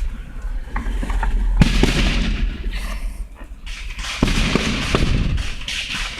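Fireworks going off: two sharp bangs, about a second and a half in and about four seconds in, each trailing off in a long rumble, with smaller pops between them.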